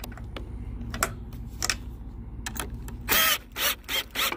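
Cordless drill driving a screw in four short bursts about three seconds in, tightening the fastener further. Before that, scattered clicks of handling over a low steady hum.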